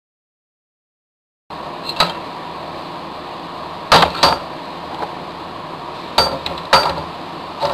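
No sound for about the first second and a half, then steady workshop hiss with about six sharp metallic clinks and clanks as a metal puller is fitted onto an office chair's gas-lift cylinder.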